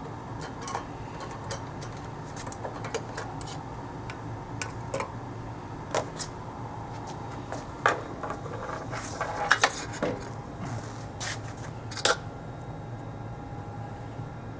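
Scattered metallic clicks and clinks of hand tools and metal parts being handled while a sensor is unbolted from a press feed, over a steady low hum. The loudest clanks come a little past the middle and again near the end.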